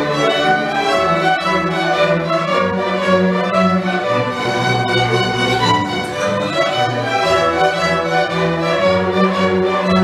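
Live orchestra, mostly violins and cellos, playing an overture: bowed strings holding long notes over a low bass line.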